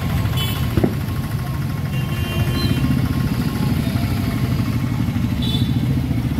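Steady low rumble of a vehicle engine running nearby, with a few brief faint high tones over it.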